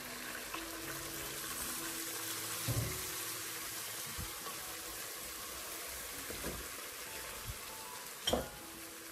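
Chicken wings sizzling and bubbling in a frying pan as hot water is poured in over the sauces to start a braise, with a sharp knock near three seconds and another near the end. Soft background music with held notes plays underneath.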